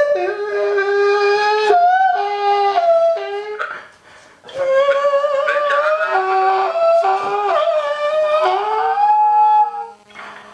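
A young man's loud, high falsetto voice, wailing in long held notes that step and slide up and down, mock-crying into a phone. It breaks off about four seconds in and again just before the end.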